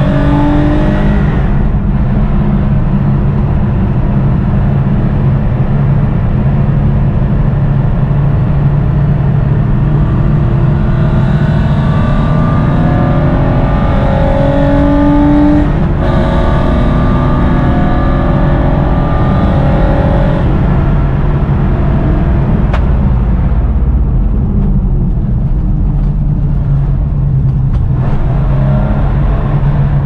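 Porsche 993 Cup's air-cooled flat-six at racing speed, revving up and dropping back again and again as it works through the gears. Its sound turns duller for a few seconds a little after halfway, then picks up again.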